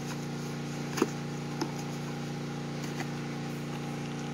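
Cardboard box and packaging being handled while unpacking, with a sharp click about a second in and a smaller one about half a second later, over a steady low hum made of several even tones.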